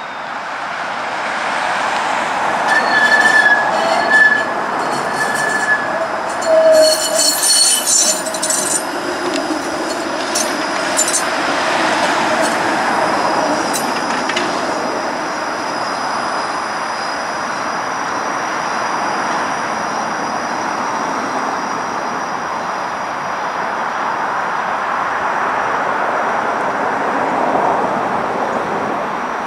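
A Flexity Outlook low-floor streetcar passes close on curved track. Its wheels squeal in several short high tones over the first several seconds, and there is a run of clicks from the wheels over rail joints around eight to eleven seconds in. After that comes a steady rolling rumble with a thin high tone as it pulls away.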